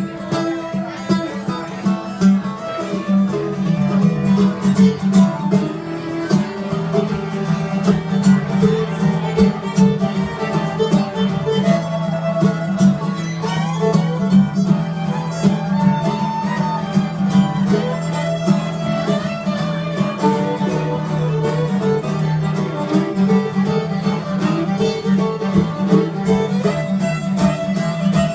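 Acoustic string band playing an instrumental passage in a bluegrass style, a fiddle carrying the melody over strummed guitar.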